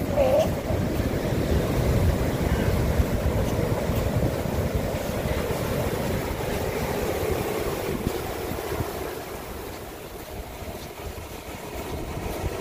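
Ocean surf breaking and washing over rocks, with wind buffeting the microphone in a low rumble; the roar eases about two-thirds of the way in, then builds again.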